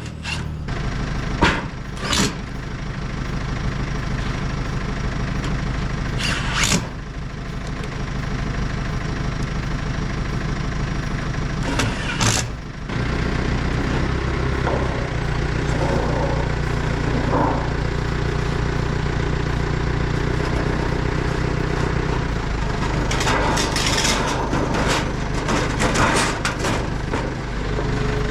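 An engine running steadily, its hum shifting slightly about halfway through. Several sharp knocks cut across it, with a cluster of them near the end.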